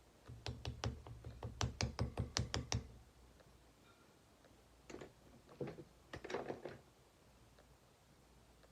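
A quick run of sharp light taps or clicks on a hard surface, about five or six a second for some two seconds, then two shorter clusters of clicks a few seconds later.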